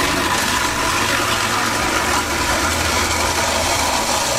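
Egg frying in hot oil in a pan: a steady, loud sizzling hiss.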